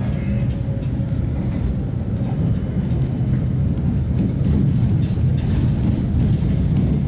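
Tatra T3 tram running along the track: a steady low rumble of wheels on rails and running gear, getting a little louder with some clattering in the second half.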